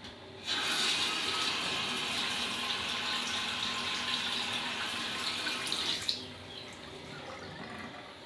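Waterfall-spout single-lever basin faucet turned on, its sheet of water splashing into a ceramic sink basin, then shut off: the flow starts abruptly about half a second in and stops about six seconds in.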